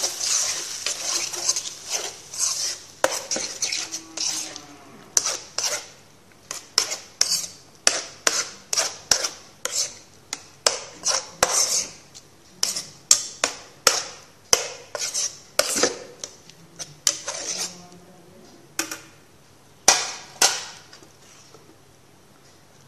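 Metal spoon stirring thick spinach-and-urad dal in a kadai, knocking and scraping against the pan one to two times a second. A frying sizzle fades away in the first couple of seconds as the dal covers the hot masala.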